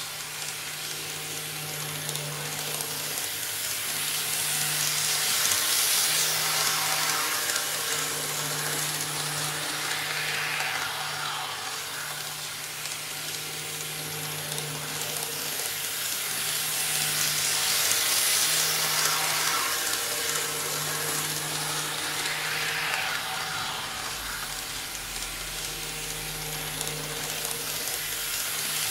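N-scale KATO KiHa 58 diesel railcar model running on KATO Unitrack laid on 3 mm cork sheet: a steady motor hum under the rattle of wheels on the rails. The noise swells as the train comes round past the microphone, about every twelve seconds.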